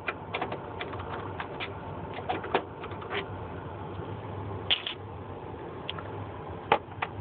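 Screwdriver turning a screw out of a printer's plastic chassis: a quick run of small clicks and ticks for about three seconds, then a few scattered sharper clicks of plastic being handled, over a low steady hum.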